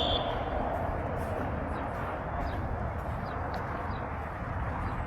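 Steady wind rumble on the microphone over faint outdoor field noise. The tail of a referee's whistle cuts off right at the start.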